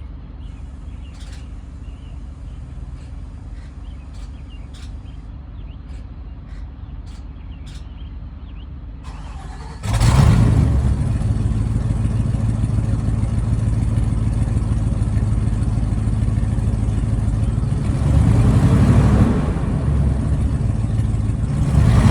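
A low steady rumble with a few faint clicks, then about ten seconds in the PSI 8.8-litre gasoline V8 of a 2020 IC school bus starts and runs loudly, its exhaust leaking. The engine is revved up briefly a couple of seconds before the end, and rises again right at the end.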